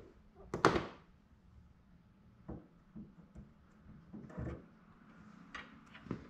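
A sharp knock just under a second in, followed by several fainter knocks and clunks spread over the next few seconds.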